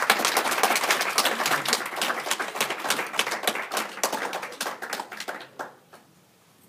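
A small audience clapping in welcome, thinning out and ending with a few last claps about six seconds in.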